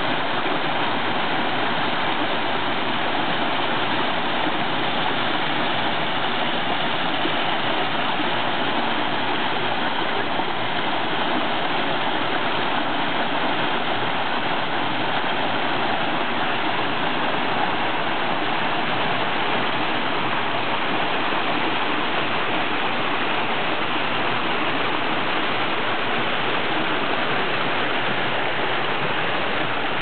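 Small cascading rock waterfall in a Japanese garden, water tumbling over stone steps and splashing into a pool: a steady, even rush of falling water.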